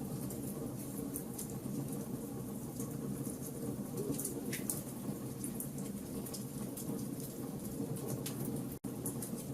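Wood fire burning in a fireplace: a steady low rush with scattered sharp crackles and pops. The sound cuts out for an instant near the end.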